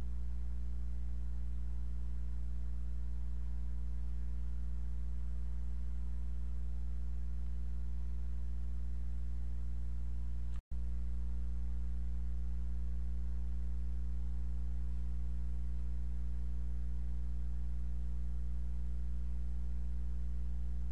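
Steady low electrical hum with a stack of buzzing overtones, unchanging throughout; it cuts out for an instant about ten seconds in.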